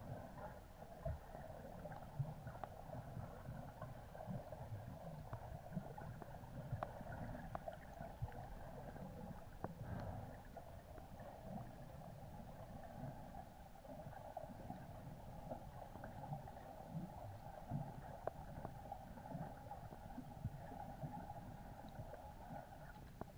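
Underwater ambience picked up by a submerged camera: a steady, muffled noise with low rumbling and scattered faint clicks.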